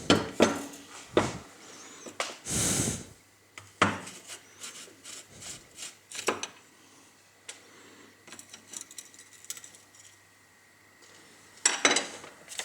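Clicks, knocks and scraping from a screwdriver and the grinder's plastic housing as a carbon-brush cap is unscrewed and the brush taken out. There is a short rasping scrape about two and a half seconds in, and a cluster of clicks near the end.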